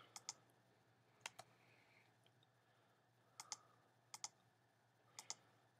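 Computer keyboard's Return key pressed repeatedly, five faint double clicks (press and release) a second or so apart, over near silence.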